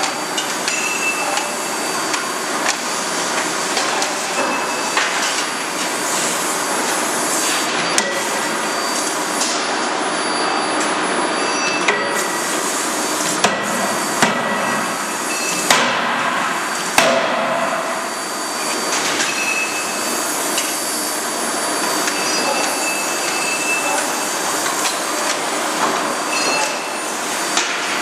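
CNC hydraulic forging hammer at work: steady loud machine noise with sharp hammer blows standing out at irregular intervals, one about eight seconds in and several in quick succession in the middle.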